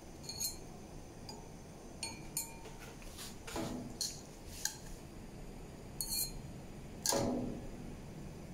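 Metal tongs clinking against a stainless steel wok and a ceramic clay pot as pieces of pork belly are lifted out and set down one by one: a series of light, sharp clicks, with two longer, louder clatters about three and a half and seven seconds in.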